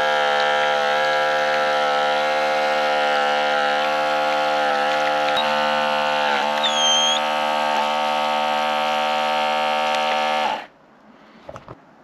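Outin Nano portable espresso machine's electric pump buzzing steadily as it pushes water through the coffee at up to 20 bars, extracting an espresso shot. The buzz cuts off suddenly about ten and a half seconds in as the shot ends.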